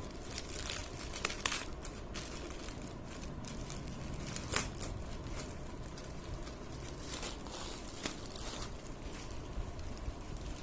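Irregular crinkling and rustling of packaging being handled, with sharper crackles about a second and a half in and again about four and a half seconds in, over a steady low background rumble.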